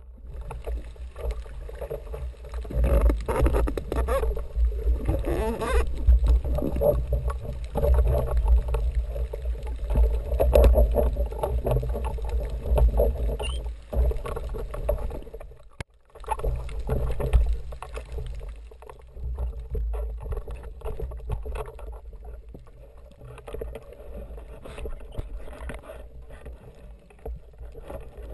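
Muffled underwater water noise on an action camera held below the surface: a steady low rumble with rushing water movement from the divers' kicking and handling. It drops out for a moment a little past halfway, then goes on more quietly.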